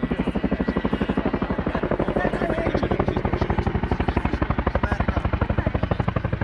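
RAF Chinook twin-rotor helicopter in flight, its tandem rotors beating in a fast, even chop.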